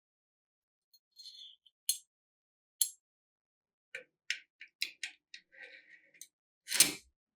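A run of sharp clicks and clacks from the parts of a restored SVT-40 obrez being handled: a few single clicks, then a quick cluster with a short scrape, and one louder clack near the end.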